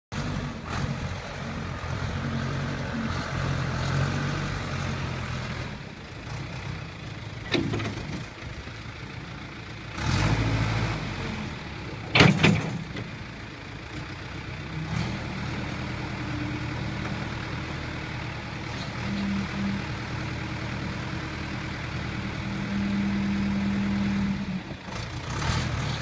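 1994 John Deere 310D loader backhoe's four-cylinder diesel engine running, its pitch rising and falling as the machine drives and works the loader. A few sharp knocks come midway, the loudest about twelve seconds in.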